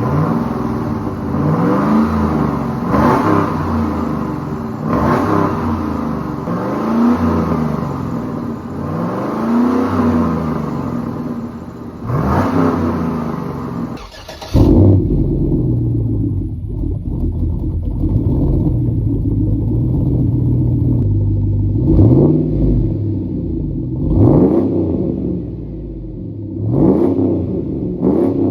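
Saab 9-7X exhaust as the engine is revved in quick blips, about one every two seconds. About halfway through the sound changes abruptly to a second recording: the engine idles steadily for several seconds, then is blipped again three or four times.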